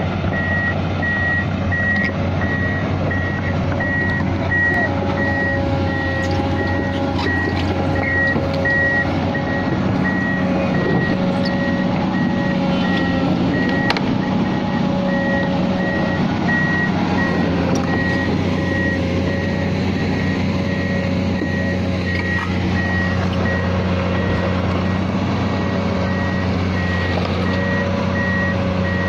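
Komatsu PC200 hydraulic excavator travelling on its steel tracks: the six-cylinder diesel engine runs steadily while the travel alarm beeps over and over in a high, even rhythm.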